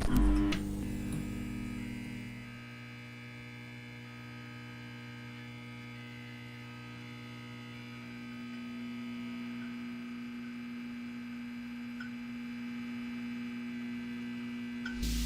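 A steady electronic hum made of several held tones, with no footsteps. It starts louder, drops a little about two seconds in, and swells slightly near the end.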